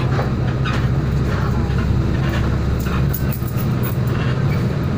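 Cabin noise of a moving road vehicle: a steady low engine drone under road noise, with scattered light rattles.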